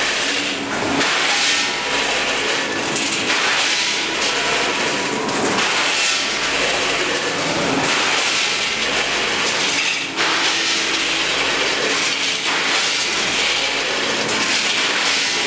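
Multihead weigher running with a load of filled pasta: a steady mechanical hum from the machine, with a surge of rattling and clattering about every two seconds as the pasta is fed and dropped through the weigh buckets.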